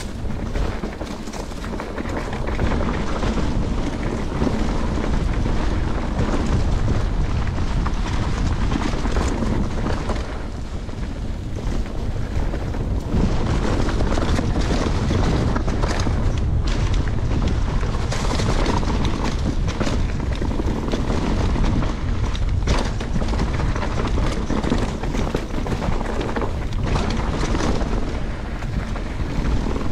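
Wind buffeting the microphone while riding a mountain bike, mixed with the bike's rattle and tyre noise over the trail, surging and easing as the ride goes on.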